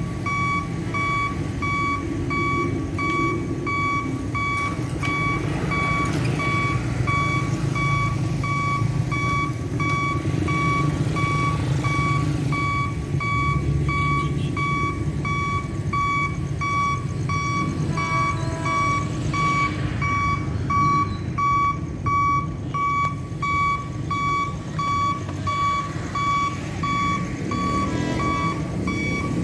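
Railway level-crossing warning alarm sounding a steady run of evenly spaced, single-pitched electronic beeps, the signal that a train is approaching. Road traffic, a car and motorbike engines, passes beneath it.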